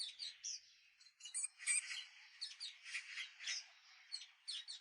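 Several small songbirds chirping, many short, high, sharp calls overlapping in quick succession.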